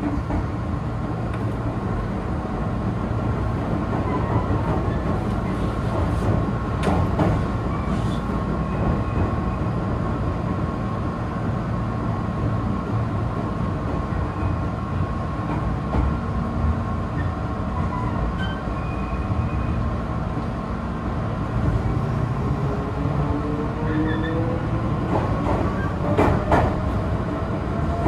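Meitetsu electric train running, heard from the driver's cab: a steady rumble with a faint whine, and a few clicks of the wheels over rail joints. Near the end a whine rises steadily in pitch.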